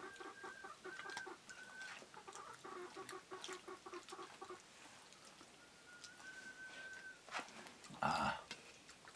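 A chicken clucking in fast runs of short repeated notes, with a longer held note about six seconds in. A brief, louder sound comes about eight seconds in.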